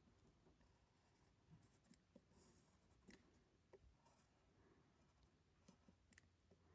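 Faint scratching of drawing strokes on paper, with a few soft clicks.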